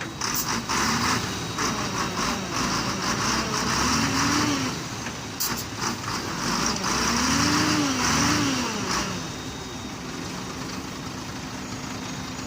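Heavy diesel engine revving up and down twice, then settling to a steadier, quieter running note near the end.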